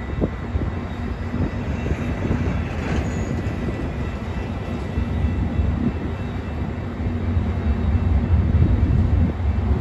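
Metra MP36PH-3S diesel-electric passenger locomotive approaching slowly with its commuter train. A steady low diesel rumble grows louder over the last few seconds.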